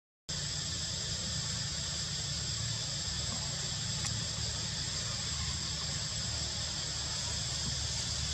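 Forest insects droning in a steady, high-pitched whine, over a low rumble.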